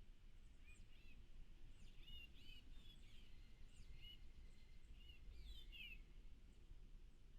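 Small birds chirping faintly: short high calls scattered throughout, with a quick run of falling notes about three-quarters of the way through, over a low steady rumble.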